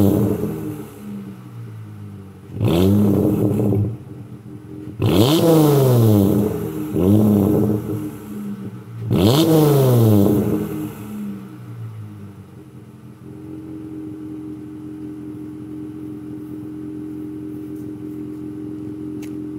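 Dodge Challenger exhaust, running through an X-pipe, a Pypes Violator mid muffler and straight pipes to dual tips, revved from idle in four quick throttle blips that rise and fall back, the last held the longest. After that the engine settles into a steady idle.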